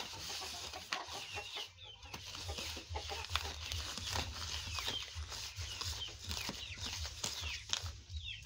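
A wooden spoon beating and scraping sugar and margarine in a plastic bowl, with quick repeated knocks, while chickens cluck and cheep with many short chirps.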